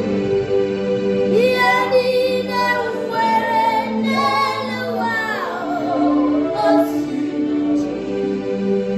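Gospel song: a young female voice sings a wavering melodic phrase over steady, sustained keyboard chords, the voice falling away about halfway through while the chords carry on.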